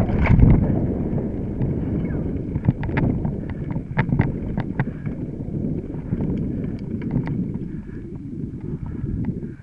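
Mountain bike riding over a rough dirt trail: a steady low rumble of tyres and frame, with sharp clicks and rattles from the bike as it bounces. The rumble eases near the end.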